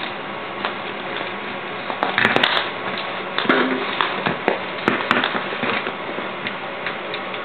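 A dog chewing at a stuffed plush toy: irregular crackles, clicks and rustles, busiest in the middle.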